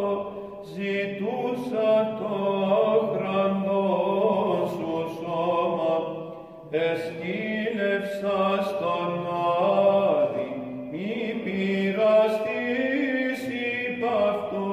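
Byzantine Orthodox chant: a solo chanter sings a slow, ornamented melody over a steady held drone (the ison). The phrases pause briefly about six and a half seconds in and again around eleven seconds.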